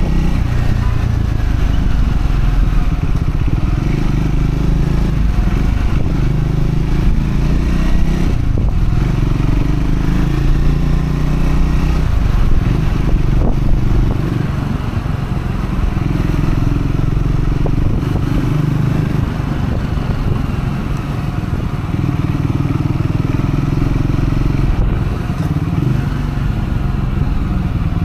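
Triumph Scrambler 400X's single-cylinder engine running while the bike is ridden, the note rising and falling a few times as revs change. The engine is being run in on a break-in ride, so the revs stay moderate.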